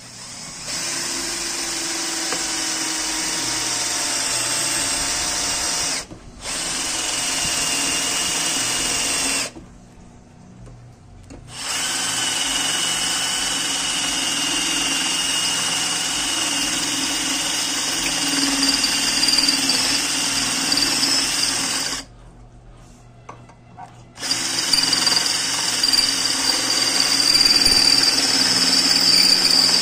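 WAP K21 21 V cordless drill/driver running a 10 mm bit into a 2 mm iron plate held in a vise, with a steady whine. It runs in four stretches: a brief stop about six seconds in, then two pauses of about two seconds each. The last stretch is the loudest.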